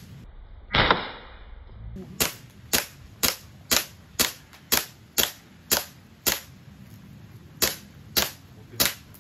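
Replica rifle fired in steady single shots, about two a second, a dozen or so sharp cracks with a short break shortly before the end. A brief rush of noise about a second in comes before the shots begin.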